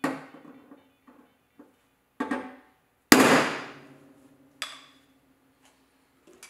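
Hammer blows on the sheet-steel cowl and firewall of a 1963 Chevy Impala, struck at an uneven pace with short metallic ringing after each. The loudest blow comes about three seconds in.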